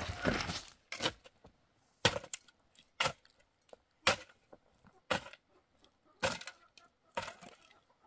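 A mattock chopping into stony soil about once a second, seven strikes in all, each a sharp hit with a short scrape of dirt and gravel. Soil scrapes briefly at the very start.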